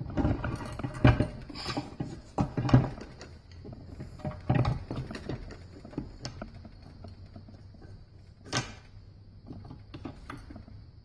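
Front and rear drum assembly of a 1955 Oldsmobile Hydra-Matic transmission being slid and rocked into the transmission case by hand: irregular metal clunks and knocks, heaviest in the first few seconds, with a sharp clink about eight and a half seconds in.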